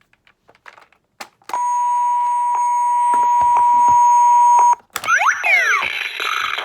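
Bop It XT toy's speaker: a few light clicks, then a steady, high electronic beep held for about three seconds that cuts off suddenly, followed by quick swooping electronic sound effects.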